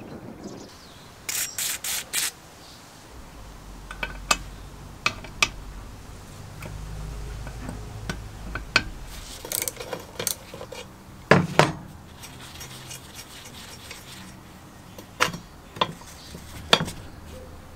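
A wrench and metal parts handled on a cast-iron forge blower housing: scattered metal clinks, ticks and scrapes as bolts are worked, with a heavier clank about eleven seconds in. About a second in there are four short hisses.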